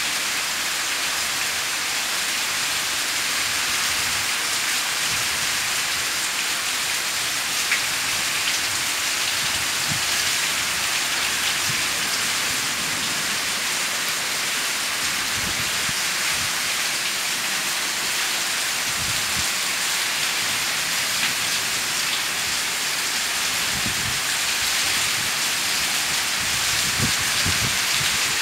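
Heavy rain pouring down in a storm: a steady, dense hiss, with brief low rumbles now and then.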